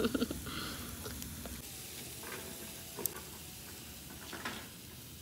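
Chicken tikka on skewers sizzling over glowing charcoal, a steady faint hiss with one sharp click about three seconds in.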